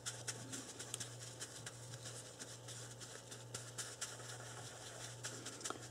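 Faint scrubbing and rustling of a sponge wet with cleaner-degreaser being rubbed over a small steel revolver part by nitrile-gloved hands, made up of irregular light scratches and clicks. A steady low hum runs underneath.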